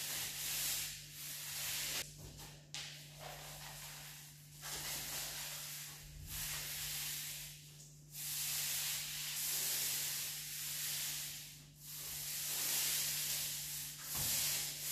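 Paint roller on an extension pole rolling wet wall paint across a plastered wall for a second coat: a sticky, hissing rasp in repeated strokes of one to three seconds, with short breaks between them.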